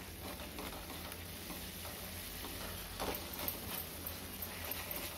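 Silicone spatula stirring and scraping a thick onion-and-spice masala paste in a non-stick kadhai, with the soft sizzle of the paste frying. A few stronger scraping strokes come about three seconds in.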